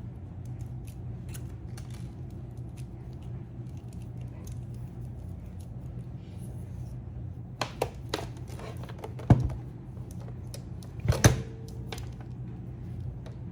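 Scattered light plastic clicks and knocks of hands handling the thermal label printer and its cables, with two louder knocks about nine and eleven seconds in, over a steady low hum.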